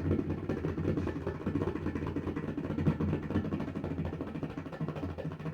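Bayan, the bass drum of a tabla pair, played with rapid, continuous strokes that blend into a dense, low rumble, imitating a sound effect.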